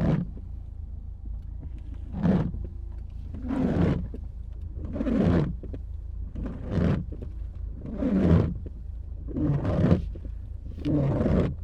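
Ford Focus windshield wipers sweeping across the wet glass, heard from inside the cabin: a rubbing swish about every second and a half, repeating evenly, over a low steady hum.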